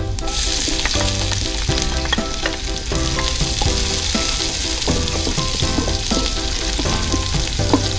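Garlic and chopped onion frying in oil in an aluminium wok: a steady sizzle, with a wooden spoon stirring and scraping against the pan.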